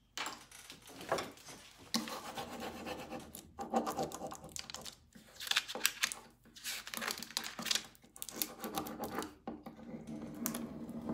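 Scratchy rubbing strokes of a small applicator burnishing a rub-on transfer onto a painted wooden bench, in irregular runs with brief pauses.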